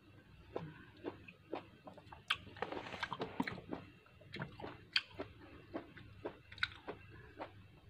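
A person chewing and biting orange segments: a run of short clicks and smacks, thickest about three seconds in.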